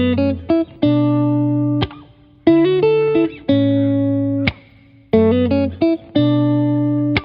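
Background music: a short riff of quick notes followed by a long held chord, repeating about every two and a half seconds.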